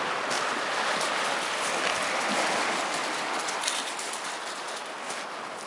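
Sea waves washing onto a shingle beach: a steady rushing hiss that eases a little near the end, with a few faint clicks of pebbles.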